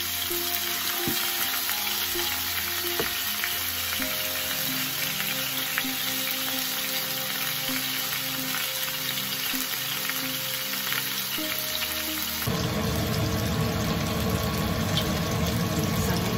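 Skin-on chicken pieces frying in oil in a nonstick frying pan, with a steady sizzle. About twelve seconds in the sizzle turns abruptly fuller and a little louder.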